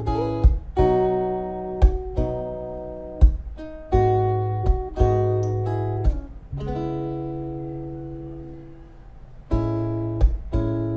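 Music: strummed acoustic guitar chords, each attack marked by a sharp percussive hit. About six seconds in, one chord is left ringing and slowly fades before the strumming resumes near the end.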